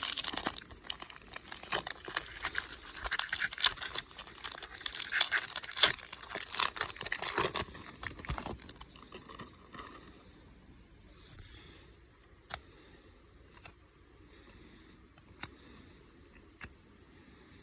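Wrapper of a baseball card pack being torn open and crinkled for about eight seconds. Then it goes quiet apart from a few short sharp clicks as the cards are handled.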